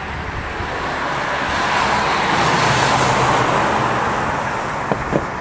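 Many fireworks going up at once: a rushing hiss that swells for about three seconds and then fades, with a couple of sharp cracks near the end.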